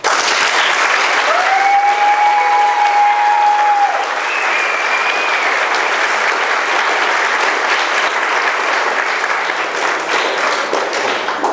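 A roomful of people applauding loudly after a speech, starting all at once and stopping about eleven seconds later. About a second in, someone in the crowd lets out a long whoop that rises and then holds, and a shorter, higher one follows a few seconds later.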